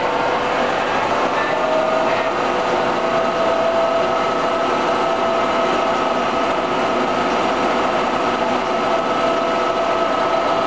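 Monarch EE toolroom lathe running under power: a steady mechanical hum from the headstock and gearbox with several steady whining tones, one more tone joining about two seconds in.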